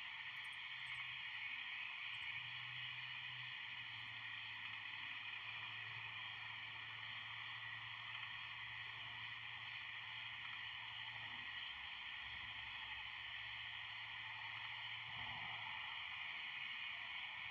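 Steady, even hiss with a faint low hum underneath, unchanging throughout.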